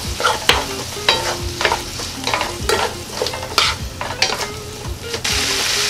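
Wooden spoons stir-frying sauce-coated eggplant, beef and onion in a nonstick frying pan, with repeated scrapes and taps against the pan over a sizzle. The sizzle turns louder and denser about five seconds in.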